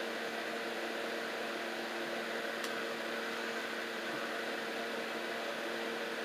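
Steady electrical hum with an even hiss beneath it, and one faint click about two and a half seconds in.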